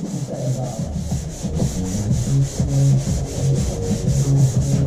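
Wet-and-dry sandpaper rubbed by hand over a painted metal van panel, quick even back-and-forth strokes at about five a second: flatting the old paint back before touch-up painting.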